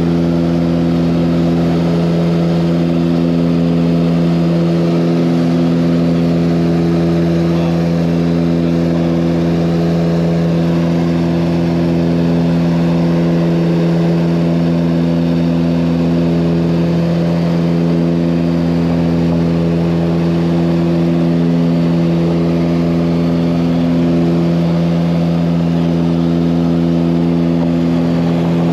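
Engine drone at a constant speed, one steady low hum with a stack of overtones that does not rise or fall, heard from inside the vehicle.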